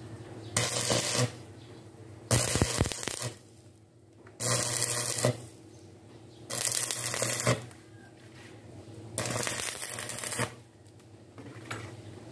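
Stick (SMAW) welding arc crackling in five short bursts of about a second each, as short welds are laid on steel angle and channel bar.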